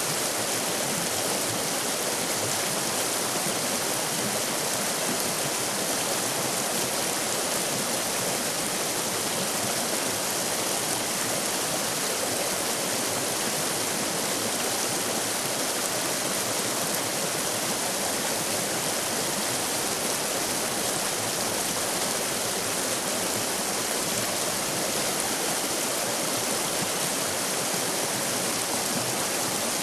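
River rapids rushing: a steady, unbroken wash of white water.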